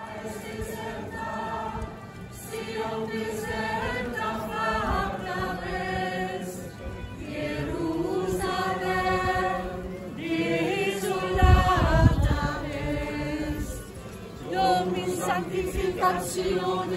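A choir of walking men and women singing together, their voices moving in sustained, shifting melodic lines. A brief low rumble on the microphone is heard about halfway through.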